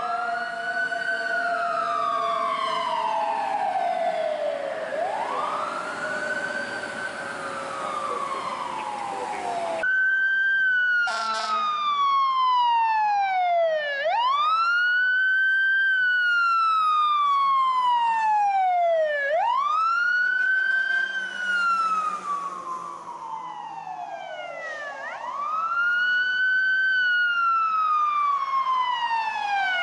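Fire-department emergency vehicle sirens on a slow wail, each cycle rising quickly and falling slowly over about five seconds. In the first part two sirens wail out of step with each other; after that one siren carries on alone, with a short blast near the start of that stretch.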